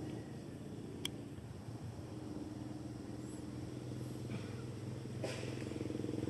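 Steady low hum, with a single sharp click about a second in and a brief rustle a little after five seconds.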